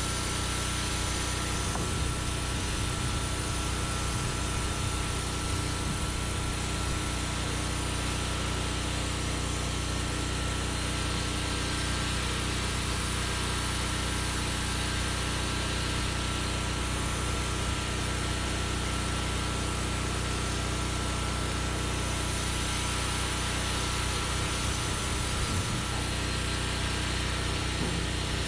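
Engine of a Norwood Lumbermate Mark IV portable bandsaw mill running at a steady speed.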